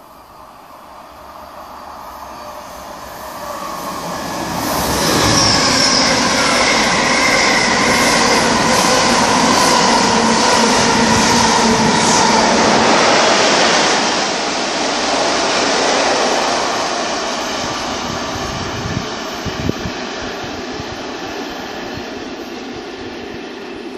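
A Mark 3 passenger train passing non-stop through a station at speed: it builds up over the first few seconds as it approaches, the rush of coaches and wheels on the rails is loudest for about ten seconds as they go by, then it fades as the train draws away.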